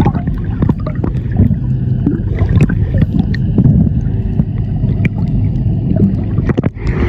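Dive boat under way: its engine rumbling steadily with water rushing past the hull, and scattered sharp knocks throughout.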